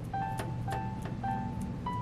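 Background music: a light melody of short, repeated two-note figures ending on a held higher note, over a soft, even beat.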